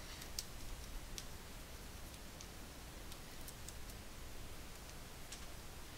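Faint, irregular light clicks of computer drawing input over a low steady hum: a stylus tapping a graphics tablet and tool clicks, about half a dozen in a few seconds.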